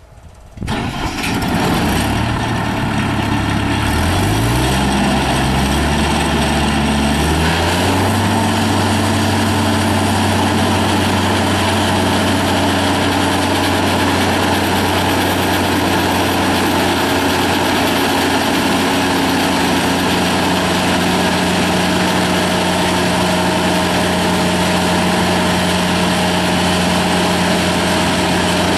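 Bowie IBD-7 straw blower starting up about a second in, its engine speeding up in rising steps over several seconds, then running steadily at working speed with the blower's rushing noise.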